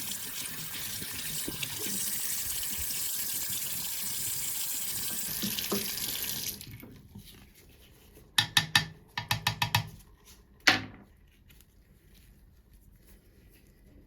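Tap water running steadily, typical of rinsing water-washable resin prints, then shut off about halfway through. Soon after come a quick run of small clatters and one sharper knock.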